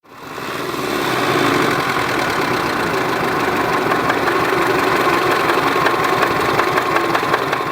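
Subaru EJ20 flat-four engine running steadily with a loud knock and rattle, the sign of an engine with badly scored cylinder bores and play in the big-end bearings.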